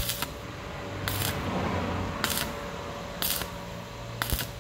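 Stick welding arc on thin trailer-fender steel in short bursts, five times about a second apart: the arc struck and broken each time so the red-hot sheet does not burn through. A steady low hum runs underneath.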